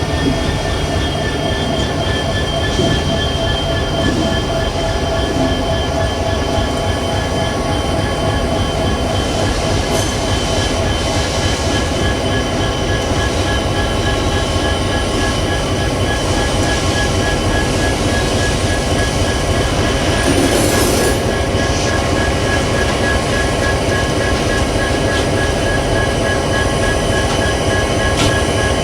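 Freight train rolling past with a steady, high wheel squeal over the rumble of the cars.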